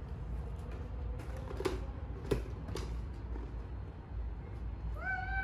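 A rubber mask being handled and set down on a table: a few light knocks and rustles over a steady low hum. Near the end comes one short, high-pitched call that rises and then holds, like a child's squeal.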